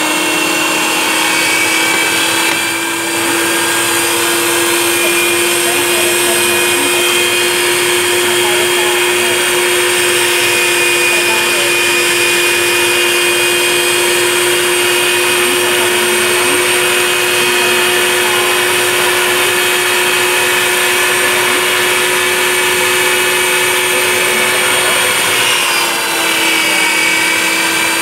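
Electric meat grinder's motor running steadily under load while grinding soft food, a constant pitched whine. The pitch sags briefly near the end as food is pressed down into the feed tube.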